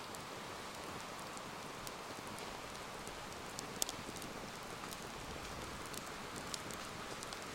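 Wood campfire burning, a steady hiss with scattered sharp crackles and pops, one louder pop near the middle.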